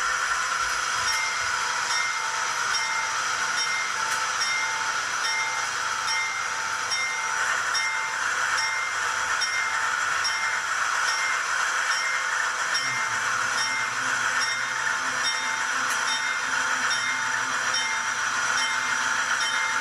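Sound-decoder recording of a GE diesel-electric locomotive engine, played through the small onboard speaker of an ESU LokSound-equipped HO scale model, running steadily. About two-thirds of the way through, a deeper engine note comes in.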